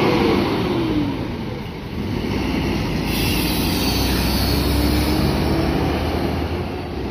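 Diesel engine of a Jetbus-bodied coach pulling away: a steady deep rumble with a drifting engine tone that falls in the first second. The rumble grows stronger about three seconds in, as the rear of the bus turns toward the listener, and a hiss joins it.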